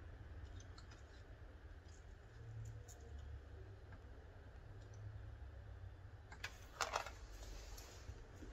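Quiet room tone with a low hum and faint ticks. A few small clicks and taps come about six and a half to seven seconds in as the soldering iron and solder are handled and lifted off the LED strip.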